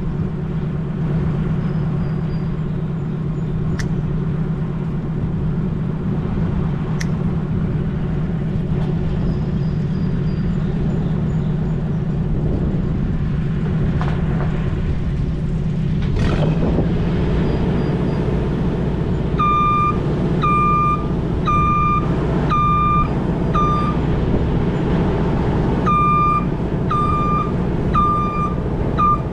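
A vehicle engine running steadily, and a reversing alarm beeping at an even pace, about one beep a second, that starts about two-thirds of the way in, pauses briefly, then starts again.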